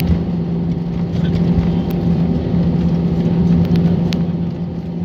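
Airbus A320 cabin noise on the landing rollout: a steady low hum from the engines over the rumble of the aircraft rolling on the runway, with a few faint clicks.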